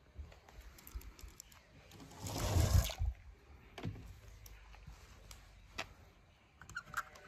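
A short rush of splashing water about two seconds in, followed by a few light clicks and taps over a quiet background.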